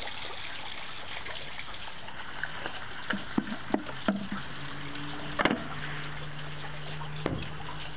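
Water poured from a plastic jug into a short PVC pipe, trickling and dribbling out of the pipe's end, over a steady hiss. Several sharp taps and knocks come through from about three seconds in, the loudest a little past halfway.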